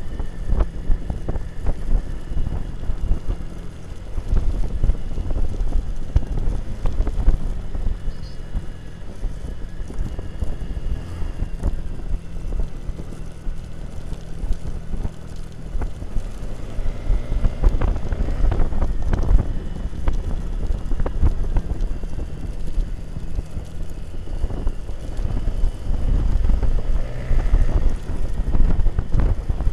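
Motorbike engine running while riding, with heavy wind noise buffeting the microphone.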